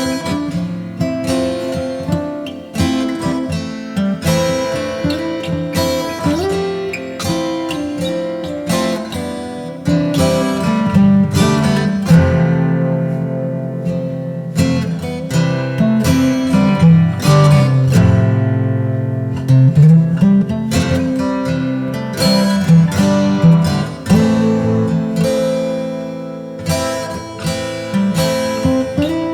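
Background music: acoustic guitar played with plucked and strummed notes, with a low melodic line in the middle.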